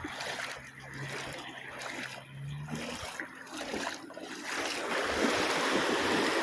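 Seawater sloshing with small waves, swelling about two-thirds of the way through into a louder, steady rush of surf and wind on the microphone.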